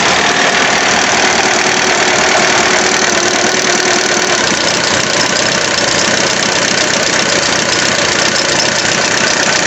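A 2001 Honda Civic's four-cylinder engine idling in neutral, a steady loud running sound, while the loose coolant-temperature sensor connector is being handled.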